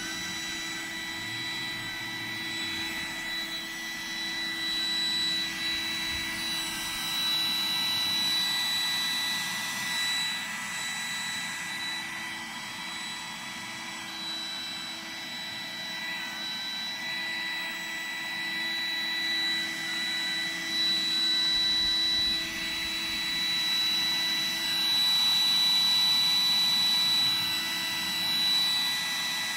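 Roomba robot vacuum running on carpet: a steady high-pitched motor whine over a brushing noise that swells and fades. The robot is failing to move across the carpet.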